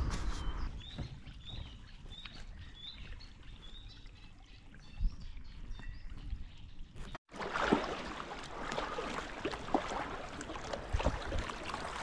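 Kayak paddles dipping and splashing, with water trickling off the blades. The first part is quieter, with a run of short high chirps. After a brief cut, the splashing paddle strokes become louder and busier.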